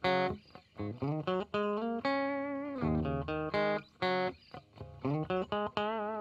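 Background music: a plucked guitar melody of short notes with brief gaps, with a longer wavering note about two seconds in and again near the end.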